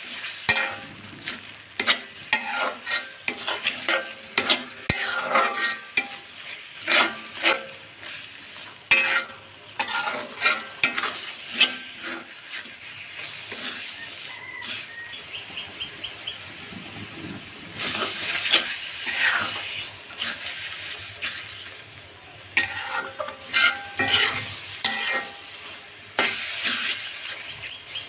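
A steel spatula scrapes and knocks against a metal pot in quick, irregular strokes as a spice paste with grated coconut is stirred and fried down (bhuna). A steady sizzle of the frying masala runs underneath.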